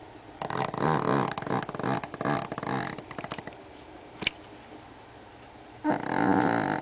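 Pomeranian snoring: a snore of about two and a half seconds, a pause with a short click, then another loud snore starting near the end.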